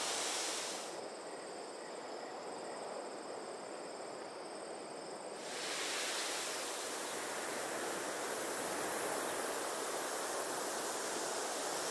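Faint, steady outdoor ambience: an even hiss with no distinct events. A thin, high steady tone sounds for a few seconds near the start, and the hiss grows a little louder and fuller about five and a half seconds in.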